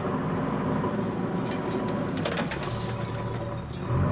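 JCB 3DX backhoe loader's diesel engine running steadily, with scattered knocks and clanks in the second half.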